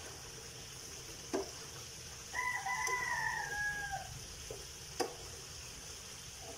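A rooster crows once, a long call of nearly two seconds in the middle, over the steady sizzle of sweet potato slices frying with sugar in a pan. Two sharp clicks of a metal spatula against the pan come before and after the crow.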